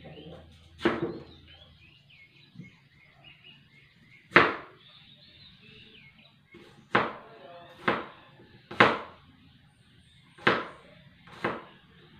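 About seven sharp knocks at irregular intervals, a second or more apart, the loudest about four seconds in.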